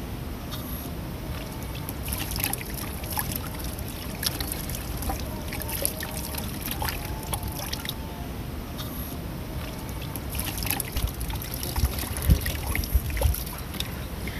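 Water trickling from a dispenser tap over cupped hands and splashing into a plastic basin below. A steady low rumble runs underneath, with a few heavier thumps about twelve to thirteen seconds in.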